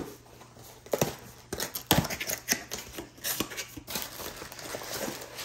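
Cardboard shipping box being handled and opened: a few knocks, then irregular crackling and scraping as the cardboard end flap is pulled open.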